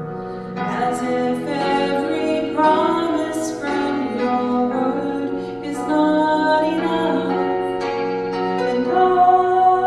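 Slow song sung to instrumental accompaniment, with long held notes changing about once a second.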